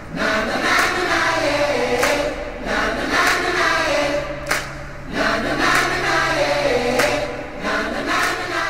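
Background music: a choir singing a slow melody over a held low note, with a sharp percussive hit about every second and a bit.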